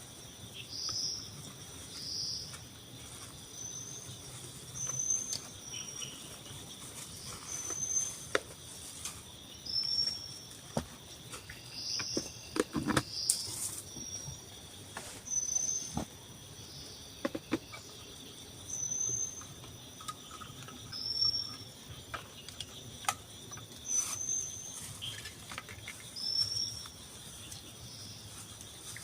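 Forest insects at dusk keep up a steady high drone, while a short high chirp, rising slightly, repeats about every second or so. A few light knocks come in now and then, loudest around the middle.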